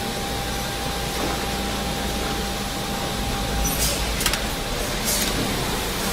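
Construction-site ambience: a steady mechanical rumble and hiss. A faint steady tone drops out a little under four seconds in, followed by a few short sharp hisses.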